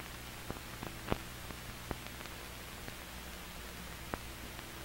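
Surface noise of an old film print's soundtrack: steady hiss over a low hum, with scattered clicks and pops from dust and wear on the track.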